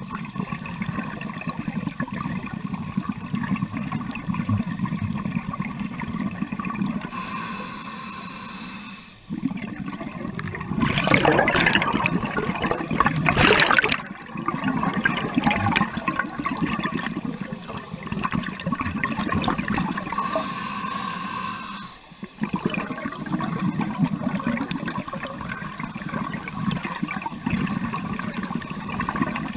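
Scuba diver's regulator breathing, heard underwater: a loud rush of exhaled bubbles lasting about four seconds, a third of the way in, with quieter hissing and bubbling through the rest and two brief lulls between breaths.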